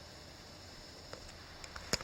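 Steady outdoor background hiss with a few faint ticks and one sharp tap just before the end.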